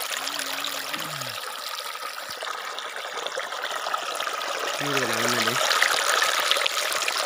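Shallow stream flowing over stones close to the microphone: a steady, loud rush of water. A voice speaks briefly twice underneath it.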